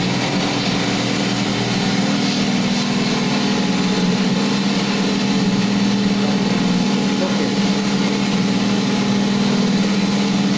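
Wall putty spray machine's pump motor running with a steady hum, switched on from its remote switch.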